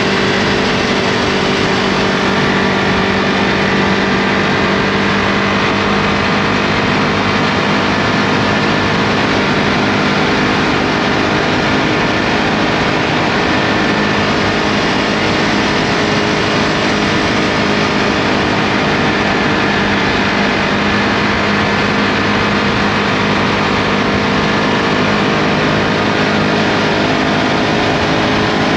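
Ducati Multistrada V2S's 937 cc V-twin engine running at a nearly steady pitch while the bike rides along, under a constant rush of wind noise.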